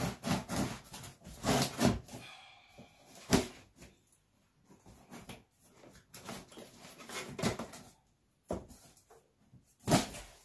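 Packing tape on a cardboard shipping box being slit with a small cutter and picked at by hand: irregular scraping, scratching and tearing, with knocks on the cardboard.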